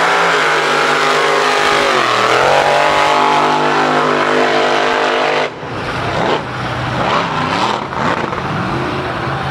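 Mud-racing truck's engine at full throttle: a loud, steady, high-revving note that dips in pitch about two seconds in and climbs back. It cuts off abruptly a little past halfway, leaving a fainter, noisier engine sound whose pitch wavers.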